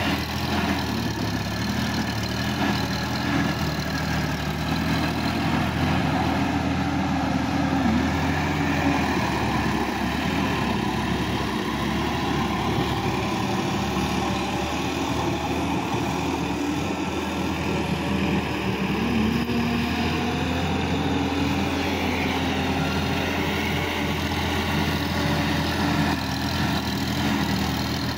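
Sonalika DI-50 RX tractor's diesel engine running steadily as the tractor drags a puddling implement through a flooded paddy field.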